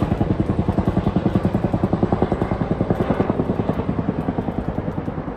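Helicopter flying over, its rotor beating steadily at about ten thumps a second and easing off slightly about halfway through.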